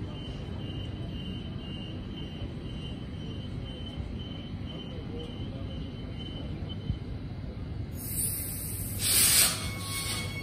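Transperth electric passenger train pulling slowly into a station platform, with a steady low rumble. A faint high beeping repeats several times a second for the first few seconds, and a short loud hiss comes near the end.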